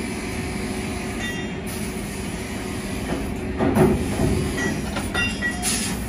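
Metalworking shop noise: a steady low machinery rumble with short ringing metal clanks, and a louder clatter about three and a half seconds in.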